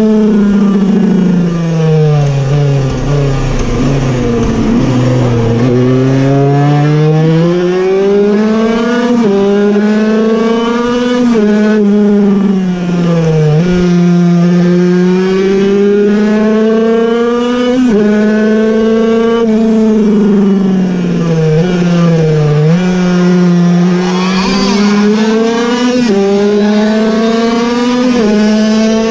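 Puch Cobra 50cc air-cooled, piston-ported two-stroke racing engine run hard, heard onboard: its pitch climbs and drops sharply at each gear change, and sinks three times as it slows for corners before winding up again.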